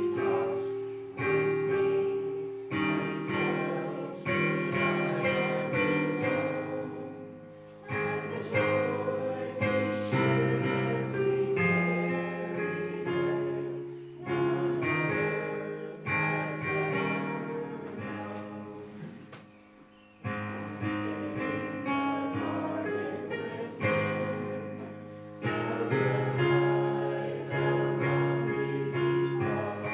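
A small congregation singing a hymn together over instrumental accompaniment, with a brief lull about two-thirds of the way through.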